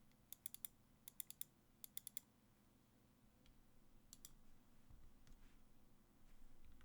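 Faint, sharp keystroke clicks from a custom mechanical keyboard with linear Creampacas switches: three quick groups of about four clicks, then two more about four seconds in.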